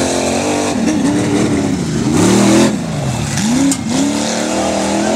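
A modified tough-truck engine revving hard and dropping back over and over as the truck drives over dirt obstacles. The pitch rises and falls about six times, and it is loudest about halfway through.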